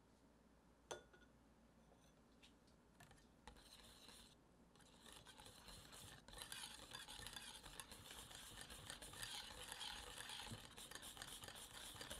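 Wire balloon whisk stirring cornstarch into a thick cream-cheese filling in a glass bowl: soft wet swishing with fine scraping ticks of the wires against the glass. It starts faintly a few seconds in and becomes steady and fuller from about six seconds, after a single light tap about a second in.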